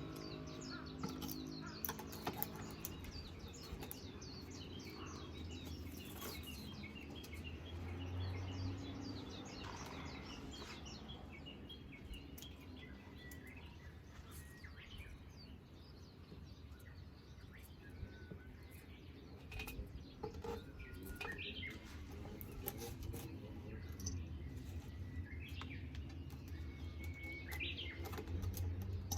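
Small birds chirping repeatedly, with a few longer whistled notes later on. Scattered light clicks and a steady low hum sit underneath.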